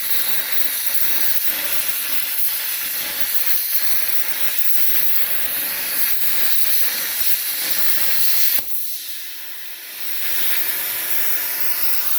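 Herocut Cut 55X plasma cutter's arc cutting steel sheet: a loud, steady hiss. About two-thirds of the way through it breaks off with a sharp pop and drops away, then the hiss comes back about a second and a half later.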